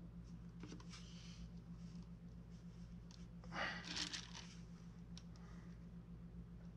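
Faint rubbing and scraping of fingers working oil-based modelling clay on a sculpture. It comes in a few short, soft scratchy passes, the loudest about three and a half seconds in, over a steady low hum.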